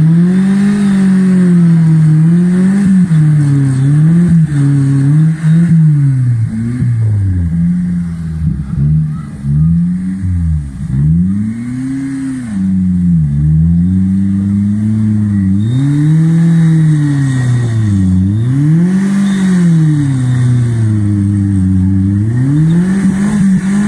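Engine of an off-road 4x4 trial vehicle revving hard and dropping back, over and over in waves every second or two, as it works through a mud obstacle.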